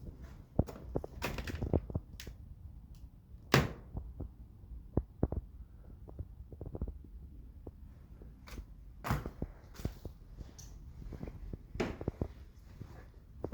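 Irregular footsteps and knocks inside an empty abandoned building: scattered thuds and clicks over a low rumble, with a few louder sharp knocks about a third of the way in, near the middle and near the end.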